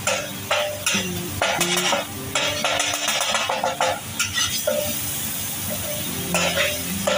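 Steel slotted spatula scraping and knocking across a flat tawa griddle as masala is stirred and pressed into the pan, in uneven strokes over a steady sizzle of frying.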